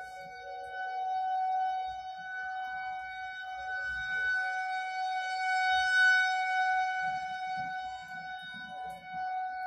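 Federal Signal 2001-130 rotating outdoor warning siren sounding a steady tone, alerting for a severe thunderstorm warning. Its loudness swells and fades as the rotating head sweeps round, loudest about six seconds in.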